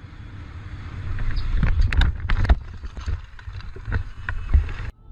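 Wind buffeting and rumble on a moving motorcycle's microphone, broken about two seconds in by a cluster of loud knocks and bangs of a collision, with a few more knocks near the end. It cuts off suddenly.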